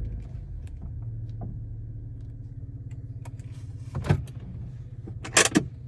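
Chevy Colorado pickup running with a steady low hum and scattered light clicks, broken by a sudden clunk about four seconds in and a louder, sharper one near the end.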